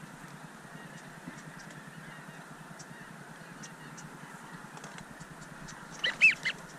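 Three quick, high, yelping goose calls about six seconds in, the loudest sound here, over a steady marsh hiss with faint, scattered distant waterfowl calls.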